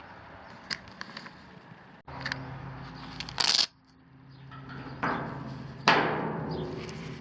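Hook-and-loop fastener on a polyester tool pouch flap torn open in one short, loud rip. Small clicks come before it, and after it there is fabric handling with a sharper knock.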